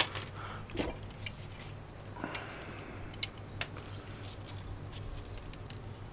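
A few scattered metallic clicks and knocks as channel-lock pliers are picked up off a workbench and clamped onto the copper-wound motor part of a scrapped drill. A low steady hum runs underneath.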